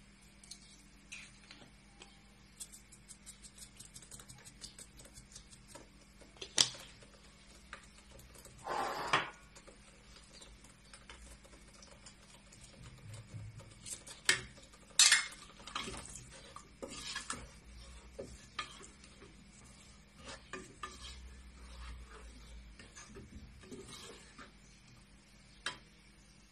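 A wooden spoon stirs sauce in an aluminium pot, with scattered sharp knocks against the pot's metal sides. A few seconds in comes a quick run of small ticks from a salt shaker being shaken over the pot.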